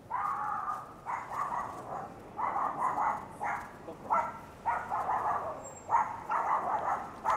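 A dog barking repeatedly, about eight barks in quick succession, each under a second long.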